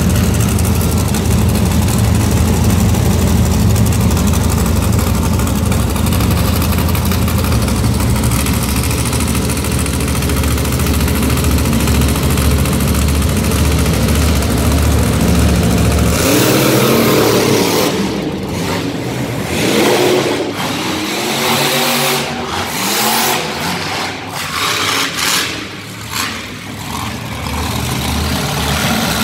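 Monster truck engine running loud and deep, then from about 16 seconds in revving up and down in bursts.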